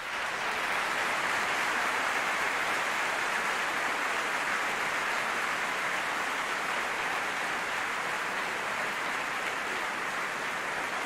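Large theatre audience applauding, loud and steady.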